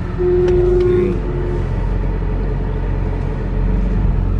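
BMW E46 M3's S54 straight-six engine running steadily at low revs, heard from inside the car. A single steady tone sounds for about a second and a half near the start.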